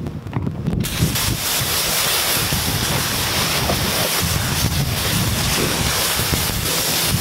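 A jet of water spraying steadily onto a car's body while it is rinsed, starting suddenly about a second in. A few clicks come just before the spray, and wind rumbles on the microphone underneath.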